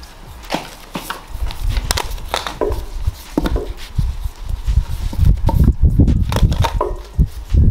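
Cardboard firework tubes being handled, rolled and pressed on a wooden board as paper labels are pasted on: irregular knocks and taps, with low thuds that grow heavier from about a second and a half in.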